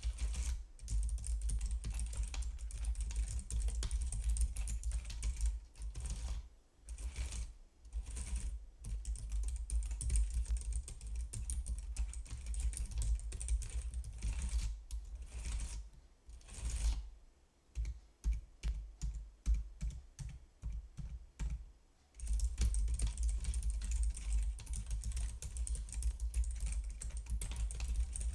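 Typing on a computer keyboard: fast, dense runs of key clicks broken by brief pauses. About two-thirds of the way in, the keys are pressed more slowly and separately for a few seconds, then rapid typing resumes.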